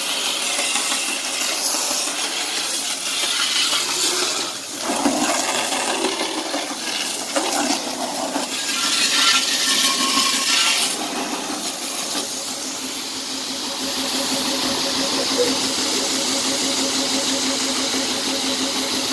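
High-pressure water jet from a 5 hp single-plunger washer hissing as it sprays against a scooter's body, loudest around the middle. In the second half the jet sprays into open air over a steady hum from the washer.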